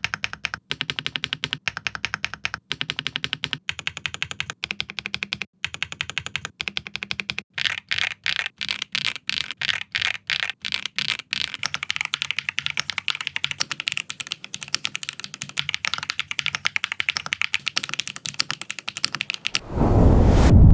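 Mechanical keyboard being typed on in quick, steady keystrokes; about seven seconds in the clatter turns brighter and denser. Near the end a loud sound swells in over the typing.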